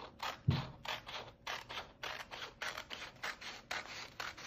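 Scissors cutting a sheet of paper along a straight line: a steady run of short snips, about four or five a second, with a soft bump about half a second in.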